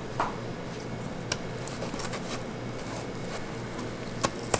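Aluminium chiffon-cake tube pans knocking and clicking lightly against each other and a metal sheet tray as they are handled, a few scattered taps with the two sharpest near the end, over a steady kitchen hum.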